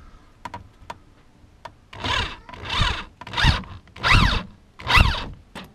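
Cordless drill driving a self-tapping screw into the plastic under a car, the trigger pulled in five short bursts about two-thirds of a second apart, starting about two seconds in.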